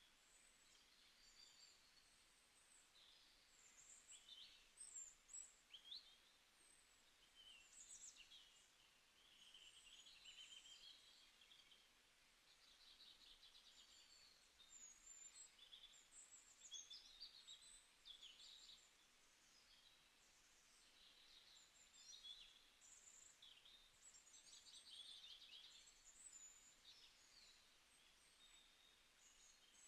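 Faint birdsong: several small birds chirping and trilling in quick, overlapping phrases.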